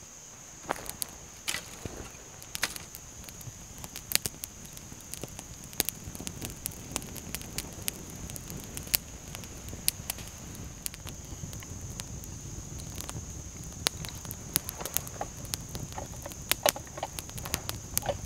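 Newly lit campfire of small kindling catching on a burning tinder bundle: dry twigs crackling and popping irregularly over a low rush of flame that builds slightly. Crickets chirp steadily behind it.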